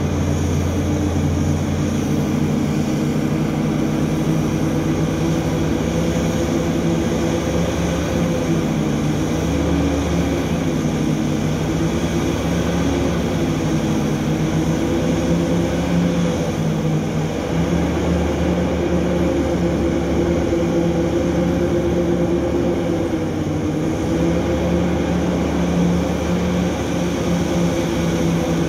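Heavy diesel engines of a Hitachi EX3600 mining excavator running steadily under load as it loads a haul truck. The deep engine note shifts a little in pitch a few times as the machine works.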